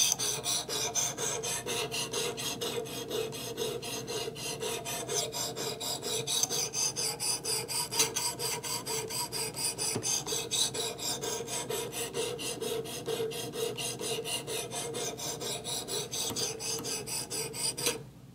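The abrasive of a Work Sharp Precision Adjust guided knife sharpener rasps back and forth along a steel knife edge in quick, even strokes. This is the first side of a new bevel being ground to raise a burr. The rasping stops near the end.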